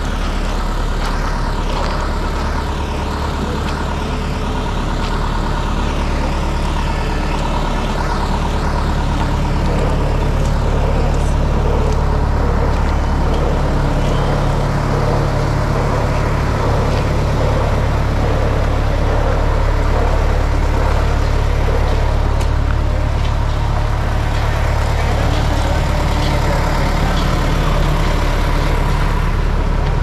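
A motor vehicle running steadily, a continuous low engine rumble with road noise that grows slightly louder about ten seconds in.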